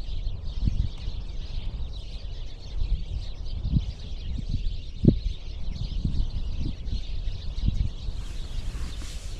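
A chorus of many birds chirping and chattering loudly, over a low uneven rumble with several soft thumps.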